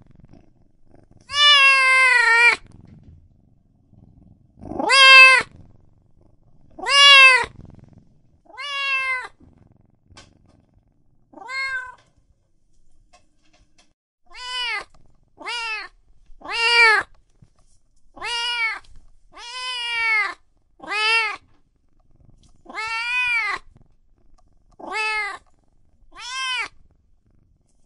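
Domestic cats meowing: about sixteen separate meows, each rising and then falling in pitch. There is a short pause of a couple of seconds around the middle.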